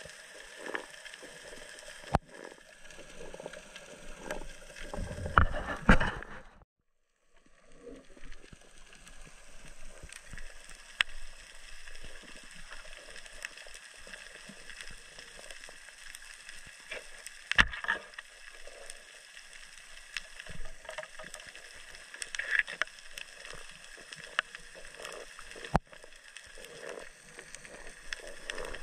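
Underwater ambience: a faint steady hiss with scattered sharp clicks and knocks. About five to six seconds in, a louder burst of knocking and rumbling cuts off abruptly.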